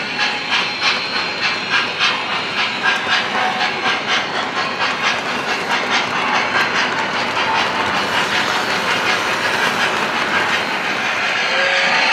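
O-scale model freight train rolling on three-rail track: the wheels clack rhythmically over the rail joints at about two clacks a second, blurring into a steady rumble as the cars pass, with a hiss growing near the end.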